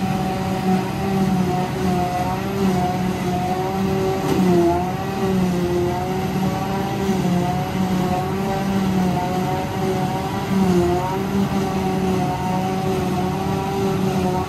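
Claas self-propelled forage harvester running at working revs while picking up grass, a steady high-pitched drone that dips briefly in pitch twice, with a tractor running alongside.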